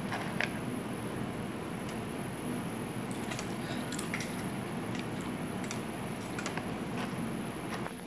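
Scattered light clicks and taps as a barn owl climbs down and steps across a table onto the rim of a plastic food container, over a steady low room hum.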